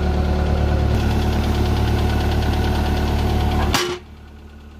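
Waldon 6000 articulating loader's engine running steadily at idle. Near the end a sharp click comes, and the sound drops suddenly to a faint level.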